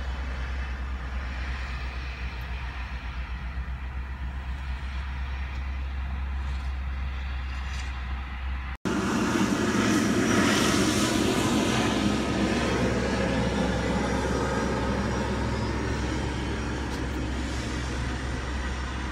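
Road and engine noise inside a moving car, a steady rumble with a low hum. After a brief cut about nine seconds in it is louder and fuller, swelling around ten to eleven seconds while the car passes under a taxiway bridge, then easing off.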